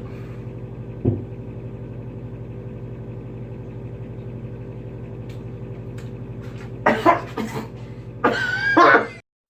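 A person hiccuping: short, sudden gulps right at the start and again about a second in, over a steady low electrical hum. Near the end come a few louder hits and a wavering high-pitched sound, and then the sound cuts off abruptly.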